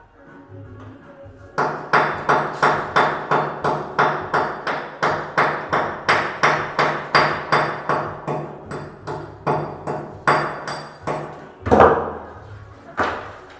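Hammer striking in a quick, steady run of about three blows a second, with a faint ringing note under them, while an exhaust fan is fitted into a wall opening. After a short pause comes one heavier, louder blow and then a final strike.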